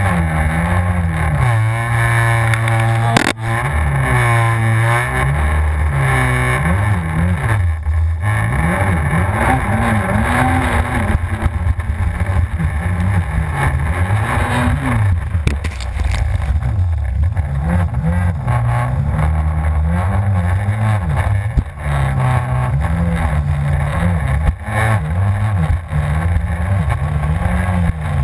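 Yamaha FZS WaveRunner jet ski engine running hard, its pitch rising and falling every second or two as the throttle is worked over the waves. One sharp knock about three seconds in.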